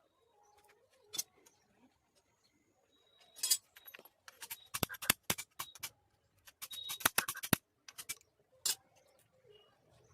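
Metal tools and engine parts clinking and knocking as they are handled, in sharp clicks that come in short clusters.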